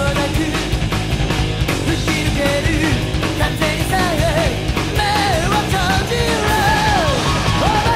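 Loud background music: a sung vocal melody over a full band with a steady beat.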